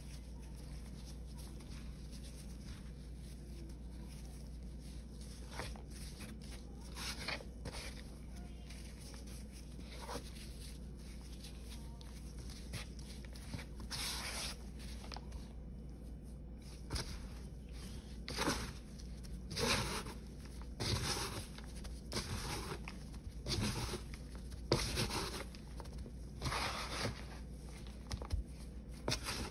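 Gloved hands crumbling, scooping and pressing dry, crumbly paste made from Ajax powder, Pine-Sol and Palmolive: gritty crunching and rustling. It is faint at first, then from about halfway there is a run of louder crunches roughly once a second.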